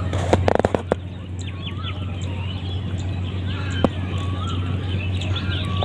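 Small birds chirping repeatedly over a steady low hum, with a few knocks about half a second in and a single sharp click near four seconds.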